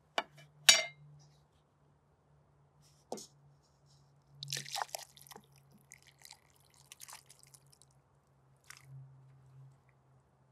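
A glass jar being handled, with two sharp clicks of glass near the start. The jar's stewed beef, vegetables and juice then slide out and plop wetly into a coconut-shell bowl in a cluster of squelches about halfway through, with scattered drips and plops after. A faint steady low hum runs underneath.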